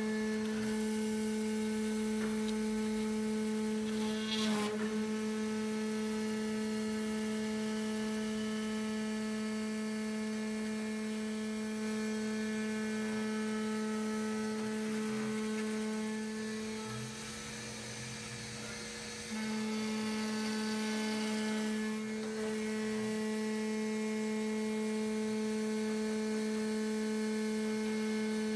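CNC router milling 1/8-inch 5052 aluminium sheet with a 1/4-inch bit: a steady whine with cutting noise over it and a short rasp about four seconds in. The whine drops in level for a couple of seconds about two-thirds of the way through.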